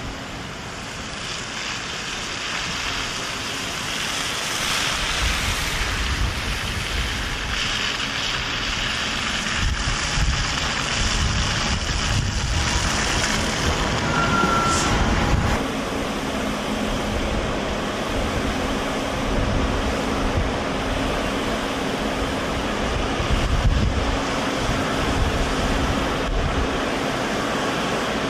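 City street traffic with trolleybuses and buses moving over a slushy road, wind buffeting the microphone. A brief high squeak sounds about halfway through.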